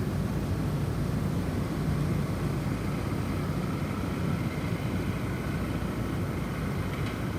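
Snowstorm wind blowing in a steady low rumble, with faint thin whistling tones above it.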